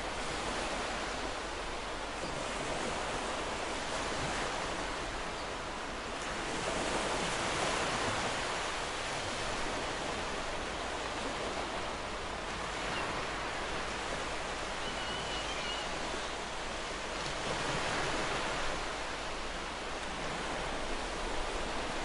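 Ocean surf lapping on a sandy beach: a steady hiss of washing water that swells gently twice, about a third of the way in and again later on.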